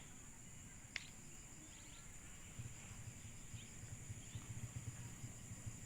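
Faint rural ambience: a steady high insect drone with a few short bird chirps, a sharp one about a second in. From about two and a half seconds in, a fluttering low rumble joins.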